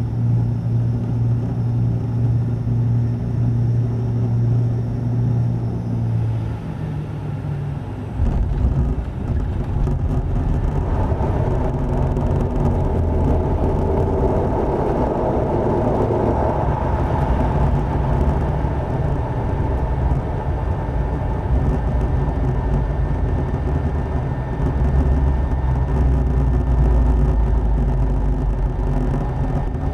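ATR turboprop airliner heard from the cabin: a steady propeller drone, then about eight seconds in a sudden jump to a heavy rumble as the wheels touch down. A swelling rush of noise follows as the aircraft slows on the runway, then a continuing runway rumble.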